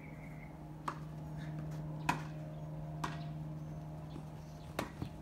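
Ball being struck back and forth in a rally: four sharp hits, roughly a second or so apart, over a steady low hum.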